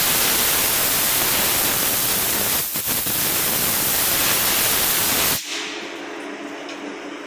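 Compressed-air blow gun hissing steadily as it blows chips and coolant off a freshly machined shaft, faltering briefly near the middle and cutting off sharply about five seconds in. A low, steady machine hum is left after it.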